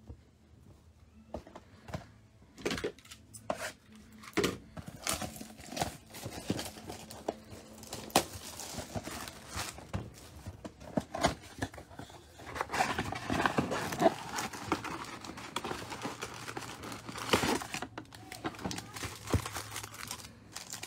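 A cardboard trading-card mega box being torn open by hand and its foil-wrapped packs pulled out: scattered handling clicks and taps, with heavier tearing and crinkling of the wrappers a little past the middle.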